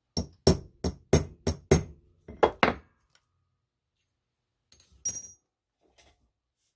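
A center punch tapped into brass stock: about eight sharp metal taps, roughly three a second, over the first three seconds. About five seconds in, a single metallic clink with a brief high ring.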